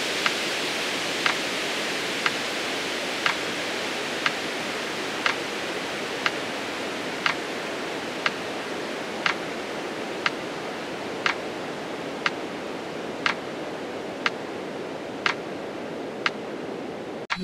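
Metronome ticking about once a second, pacing the count of a slow yogic exhale, over a steady hiss.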